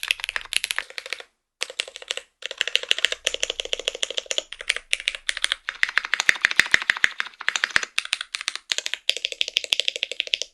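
Fast, continuous typing on a Kinetic Labs TG67 gasket-mounted mechanical keyboard with a polycarbonate plate, stock Jwick tactile switches and PBT keycaps. The keystrokes come as rapid clacks, with brief pauses about a second and two seconds in.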